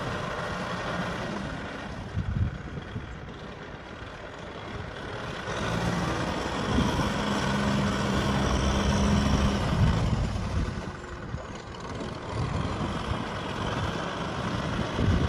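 Kubota M6040 SU tractor's diesel engine running, louder about five seconds in and easing back after about ten seconds.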